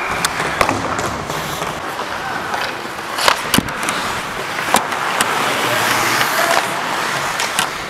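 Hockey skates scraping and hissing over the ice, with several sharp clacks scattered through.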